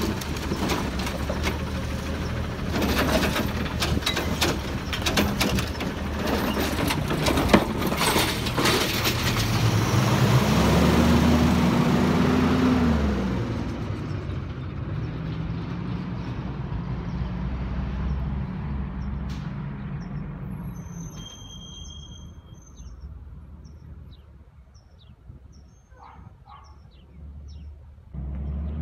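Automated side-loader garbage truck's diesel engine running with clanks and rattles from the truck, then the engine revs up as it pulls away, about ten seconds in, and fades into the distance. Birds chirp near the end.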